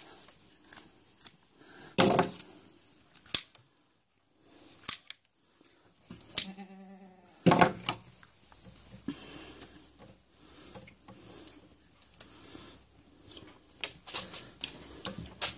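Hoof shears snipping through a cloven hoof during trimming: a series of sharp single clicks spaced a second or more apart, with a quicker run of snips near the end.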